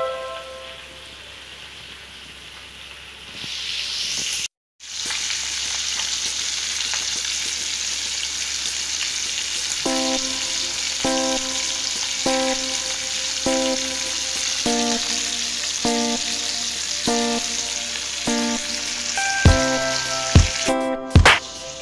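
Pork pieces sizzling as they fry in hot oil in a pan. A steady sizzle comes in a few seconds in, and a few sharp knocks sound near the end.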